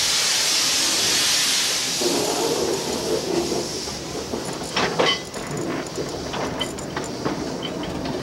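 Small backyard steam locomotive hissing steam as it starts off. The hiss fades after about two seconds, leaving a low rumble and scattered clanks and clicks from the moving cars and wheels, the loudest clank about five seconds in.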